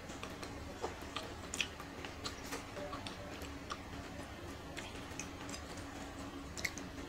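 Close-miked eating sounds: chewing a mouthful of rice and pork with irregular soft wet clicks and smacks of the mouth, several a second. A faint steady hum sits underneath.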